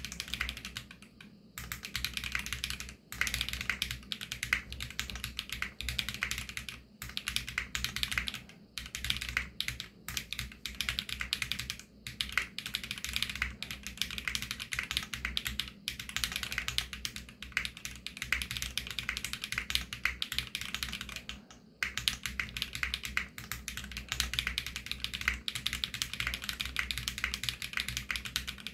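Continuous fast typing on a 65% mechanical keyboard with lubed Varo Panda tactile switches and PBT keycaps: a dense run of key clacks, broken by short pauses every few seconds.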